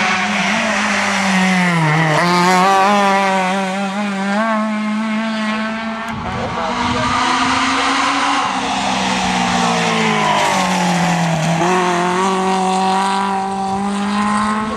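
Hillclimb rally car engines revving hard. Twice the engine note drops sharply as a car brakes and changes down for a bend, then climbs again as it accelerates away.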